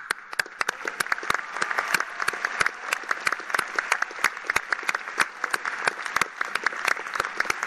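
Crowd applauding: a dense, steady clatter of many hands clapping, with many loud single claps standing out.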